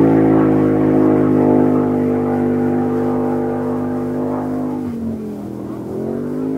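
Blue land-speed race coupe's engine at high revs, its pitch falling slowly as the car runs away and slows at the end of its run with parachutes out. About five seconds in, the note drops sharply, then rises again briefly.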